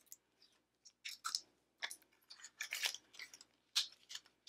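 Cosmetic packaging handled out of sight: a run of short, faint rustles and clicks as a lipstick is put down and the next product is picked up.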